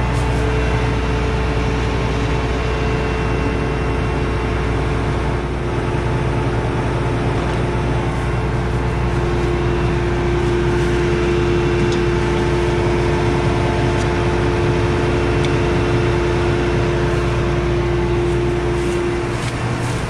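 John Deere S660 combine running steadily at close range: an even engine hum with a steady whine from the machinery over it.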